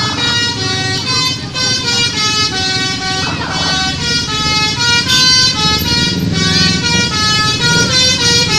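Eagle High bus telolet horns playing a tune of short notes that step quickly from pitch to pitch, over the low rumble of running bus engines.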